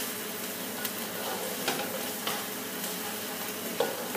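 Chopped onions and garlic sizzling in oil in a black two-handled pan as a spatula stirs them, with a few short scrapes and taps of the spatula against the pan.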